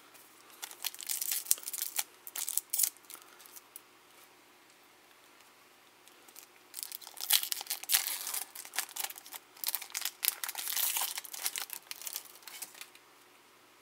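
Foil wrapper of a 2018 Topps Opening Day trading-card pack crinkling and tearing as it is ripped open and handled, in two spells of crackling with a quiet few seconds between them.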